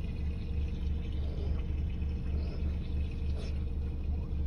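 A low, steady rumble with a slight pulsing beat, with a few faint ticks and knocks over it.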